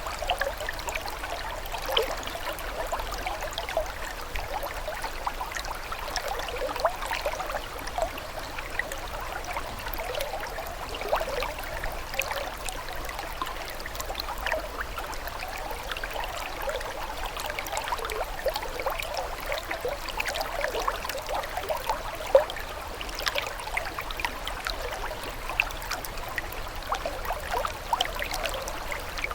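Running water trickling steadily, with many small gurgles and splashes, and one slightly louder splash about two-thirds of the way through.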